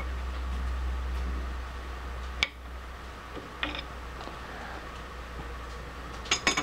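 An adjustable wrench clinking against the metal lathe, with a steady low hum that cuts off with a sharp click about two and a half seconds in. Another clink follows, then a quick cluster of metal clicks near the end.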